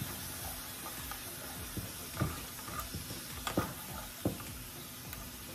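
Diced bell peppers and onion sizzling in olive oil in a frying pan while being stirred with a spatula, with a few sharp knocks of the spatula against the pan between about two and four seconds in.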